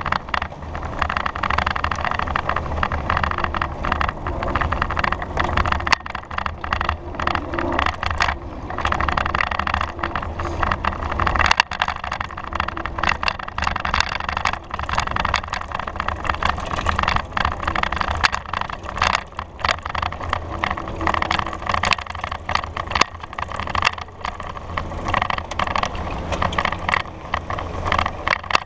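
Ride noise of a bicycle on rough, patched city asphalt, picked up by a camera on the bike: a steady low rumble with frequent rattling knocks as the bike jolts over the bumps, and street traffic around it.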